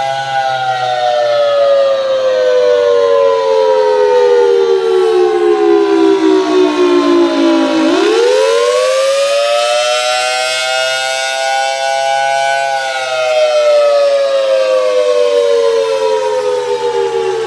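Federal Signal Thunderbolt 1000T outdoor warning siren sounding the attack signal, a rising and falling wail. Its pitch slides slowly down, sweeps quickly back up about halfway through, holds near the top for a few seconds, then starts sliding down again.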